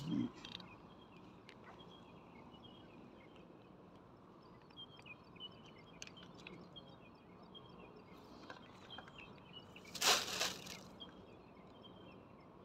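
Quiet pondside outdoor ambience with faint, repeated high chirps, broken once about ten seconds in by a brief, loud rustling swish.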